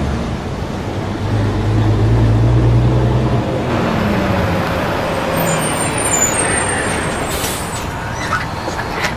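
Bus engine running as the bus drives along the road, a low steady drone that drops away about three and a half seconds in, leaving road and tyre noise.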